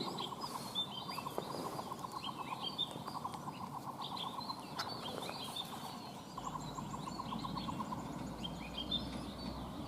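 Wild birds chirping outdoors: many short, high calls scattered throughout, with a fast pulsing trill in two stretches underneath.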